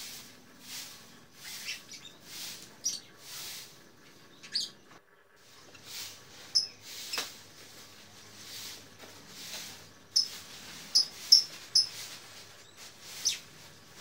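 Caged lovebirds chirping: short, sharp, high-pitched calls scattered irregularly, coming in a quicker cluster a few seconds before the end.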